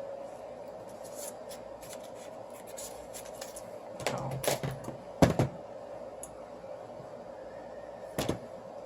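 A few sharp clicks and scrapes of small hand tools and adhesive tape being worked on a phone frame, the strongest just after halfway. A steady low hum runs underneath.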